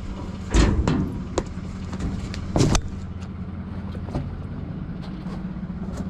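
A vehicle engine idling with a steady low hum, while objects are handled and knock and clatter several times, the loudest knocks about half a second and two and a half seconds in.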